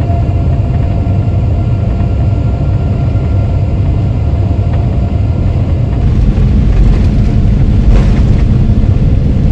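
Loud steady rumble inside a Boeing 787-10 cabin during the takeoff roll: engines at takeoff thrust and wheels on the runway, growing louder about six seconds in.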